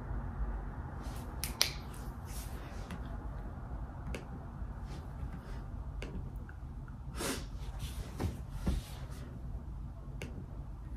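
Scattered light clicks and taps from hands handling something, over a low steady room hum. There is one sharp click about one and a half seconds in, and a few louder rustles between about seven and nine seconds in.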